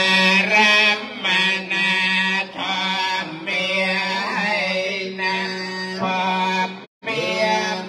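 Male voice chanting Buddhist verses in long, drawn-out phrases of about a second each; it cuts out suddenly for a moment near the end, then resumes.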